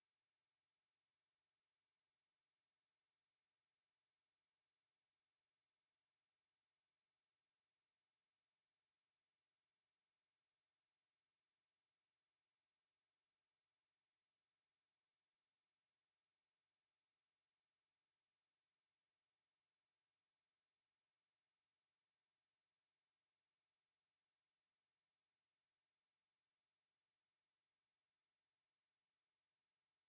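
A steady, high-pitched 7432 Hz sine-wave test tone, one pure pitch held at a constant level.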